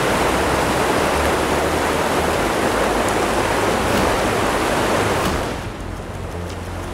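Steady, loud rush of torrential floodwater, with a low rumble under it, dropping in level near the end.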